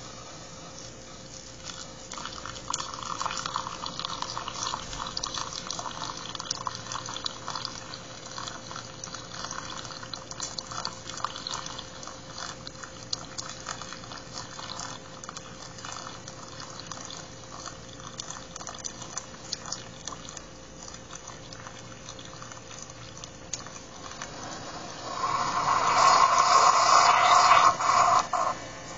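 Single-serve coffee brewer pouring a thin stream of coffee into a paper cup, the liquid trickling and crackling over a faint steady hum. Near the end it sputters loudly for a few seconds as the brew finishes and the cup churns.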